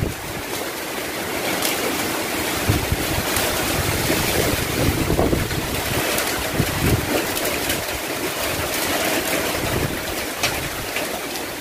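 Typhoon-force wind rushing and gusting, with surges of gust noise buffeting the microphone.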